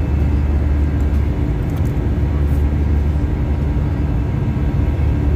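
Steady drone of an airliner cabin in flight: a deep, even rumble of the engines and rushing air, with a faint steady hum of a few tones above it.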